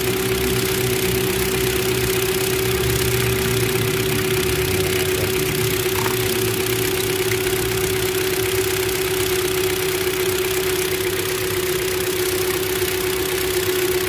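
Hyundai Elantra 1.6 four-cylinder engine idling roughly with a misfire, the engine shaking. A steady whine runs over the uneven low rumble. The mechanic suspects an ignition fault.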